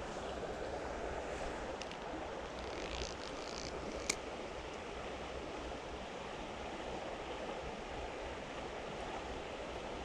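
Creek water flowing steadily, with a single sharp click about four seconds in.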